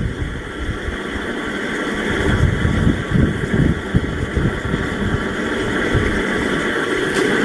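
A motor running steadily, with irregular low rumbling over it.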